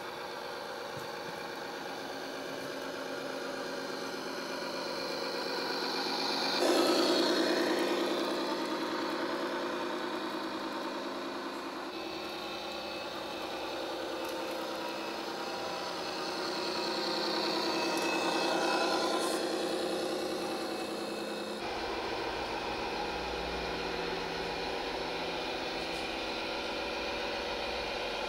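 Tamiya Knight Hauler 1/14 RC truck's sound module playing a V8 engine sound, idling and revving up as the truck drives. The revving comes sharply about seven seconds in and more gradually around eighteen seconds.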